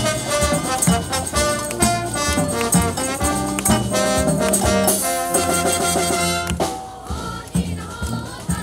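Junior brass band with drum kit playing an up-tempo pop arrangement, full brass over a steady drum beat. About seven seconds in the full band breaks off and the music turns quieter and thinner.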